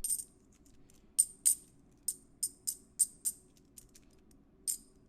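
Silver Franklin half dollars clinking against one another as they are handled and stacked: about ten sharp, ringing metallic clinks at irregular intervals.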